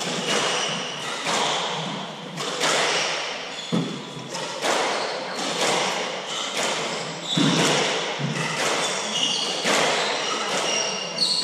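Hardball doubles squash rally: the hard ball cracking off racquets and court walls roughly once a second, each hit ringing in the court's echo, with brief high shoe squeaks between shots.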